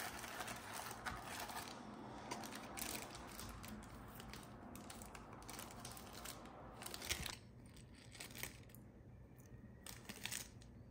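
Hands handling packing: rustling and crinkling of foam and a small plastic bag of model parts for about seven seconds, then a few small clicks and taps as tiny plastic parts are handled.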